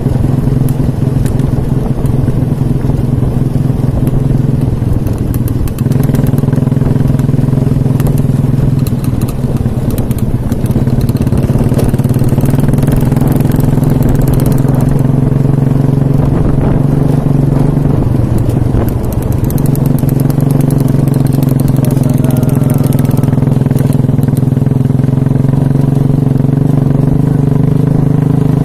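Motorcycle engine running steadily under way, its pitch stepping up a few seconds in, dipping briefly about two-thirds of the way through and then picking up again.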